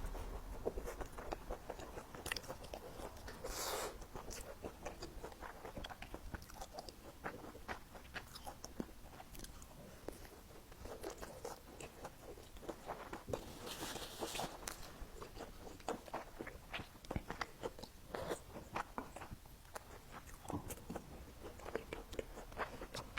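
A person chewing and biting food close to the microphone, with many small wet clicks throughout, and twice a brief hiss.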